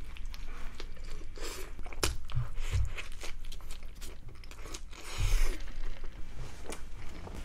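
A person biting into and chewing a Lotteria Hot Chicken folder burger, a folded fried-chicken burger, close to the microphone: many short crackles and wet clicks of chewing, with a louder stretch about five seconds in.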